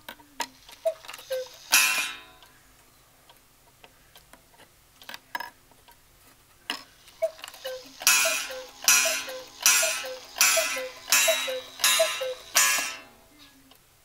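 Wooden cuckoo clock striking. One two-note cuckoo call and a gong stroke come about two seconds in. From about seven seconds a run of cuckoo calls follows, interleaved with about eight ringing gong strikes, roughly one every two-thirds of a second, with the light ticking of the movement between.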